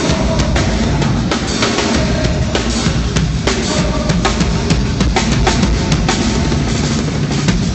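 A live rock band playing loudly, the drum kit's bass drum and snare hits prominent. It is picked up by a phone's microphone, so the sound is dull above the middle of the treble range.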